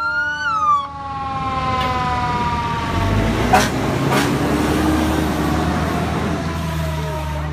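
Emergency vehicle siren giving a short rising-and-falling whoop, then a long wail sliding slowly down in pitch as it winds down. About three seconds in, a heavy vehicle engine rumbles and revs up as it pulls away, with two sharp clicks.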